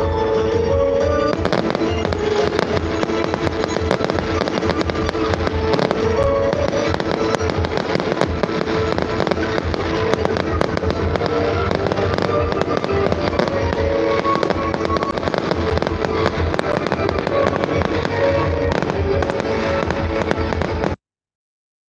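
Aerial fireworks display: a dense, continuous run of bangs and pops from bursting shells, with music playing underneath, until the sound cuts off suddenly near the end.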